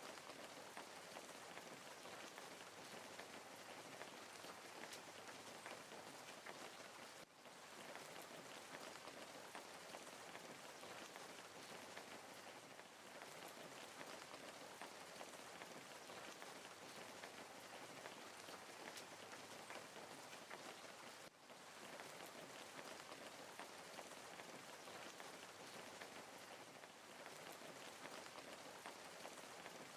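Wood fire crackling steadily: a dense hiss of many small pops and snaps, dropping away briefly twice.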